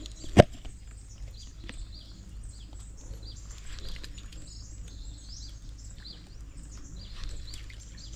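Birds chirping and calling in short, scattered notes over a steady low hum, with one sharp knock about half a second in.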